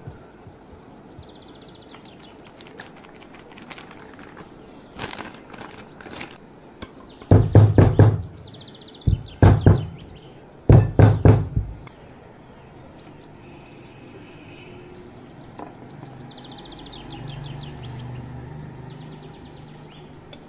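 Floured glass baking dish knocked down against the work surface in three quick clusters of loud knocks, about 7, 9 and 11 seconds in, to spread the flour coating.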